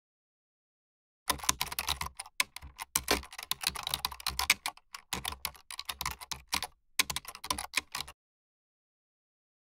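Fast typing on a computer keyboard: a dense run of key clicks that starts about a second in and stops suddenly about a second and a half before the end.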